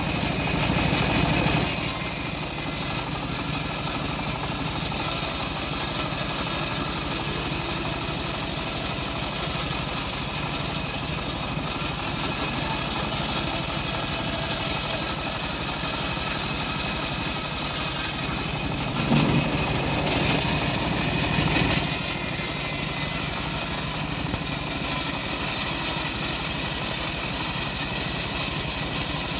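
Stihl MS 381 two-stroke chainsaw running steadily under load as it cuts timber, with brief shifts in its sound about two seconds in and again around nineteen to twenty-two seconds.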